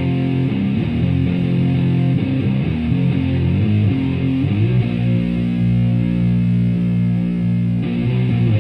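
Stratocaster through a Violet Ram's Head Big Muff fuzz pedal into a Marshall Plexi head and 4x12 cabinet, playing a heavy fuzzed riff. About halfway through, a chord is held and sustains until near the end.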